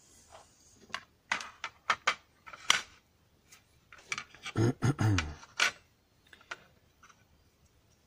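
Hard clicks and knocks of a metal lock cylinder and picking tools being set down and handled on a plastic pinning tray: a quick run of sharp taps in the first few seconds, then a few sparser, fainter clicks. A short low vocal sound comes about halfway through.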